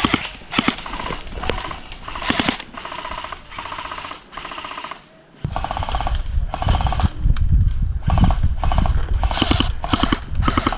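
Repeated short bursts of rapid airsoft gunfire, with heavy thudding and knocking of movement close to the microphone, louder in the second half.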